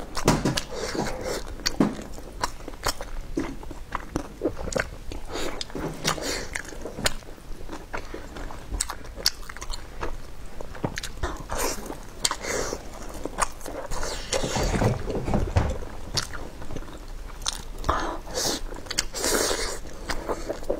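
A person biting and chewing braised fried meatballs, with many irregular mouth clicks and smacks.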